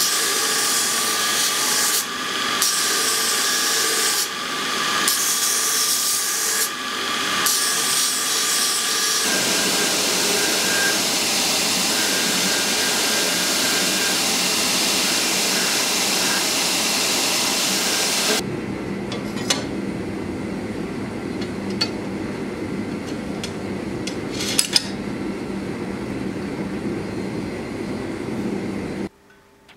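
Belt grinder grinding a pattern-welded steel sword guard, the noise dipping briefly every couple of seconds as the piece comes off the belt. A steadier stretch on a second belt machine follows. For the last ten seconds the steel is worked by hand with a quieter rubbing sound and a few clicks, stopping suddenly near the end.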